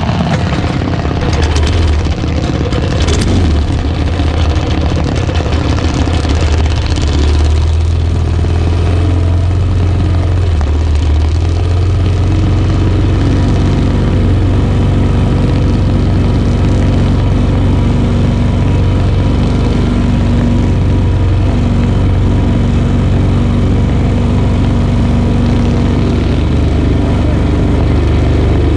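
Junior dragster's single-cylinder engine idling steadily, loud and close.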